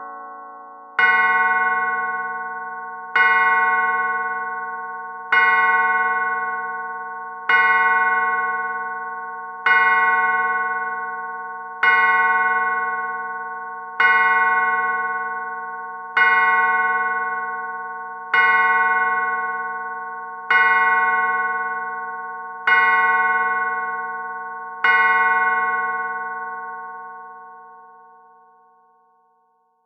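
Clock bell striking the hour: twelve slow, evenly spaced strikes about two seconds apart, each ringing on and overlapping the next. The last strike fades away near the end.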